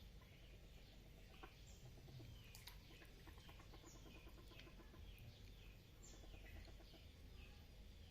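Frogs calling in a pond: a faint chorus of short, quick, falling chirps a few times a second, with stretches of rapid pulsed croaking underneath, and a single sharp click a little under three seconds in.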